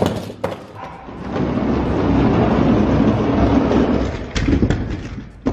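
Diecast toy monster trucks rolling down a plastic track, a steady rumble with a few sharp clacks and knocks near the end as they bounce and hit the course.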